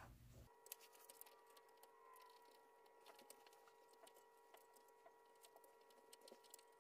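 Near silence with faint, irregular small clicks and taps of hand work at a bench vise: PVC jaw inserts being screwed onto the vise jaws. A faint steady hum sits underneath.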